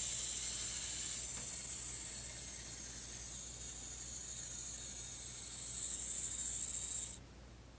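Tomytec Moving Bus System N-scale model buses running on their track: a steady high-pitched whine from their tiny motors and gears. It cuts off suddenly about seven seconds in as the buses stop.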